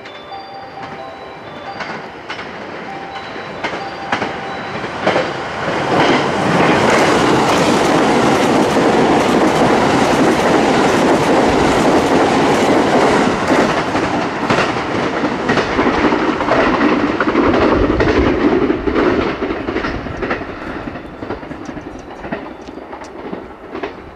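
JR West 287 series limited express electric train running through the station at speed: a loud rush of wheel and running noise builds from about five seconds in, with rapid rail-joint clicks as the cars pass, then fades away over the last few seconds. Faint repeating tones sound in the first few seconds before it arrives.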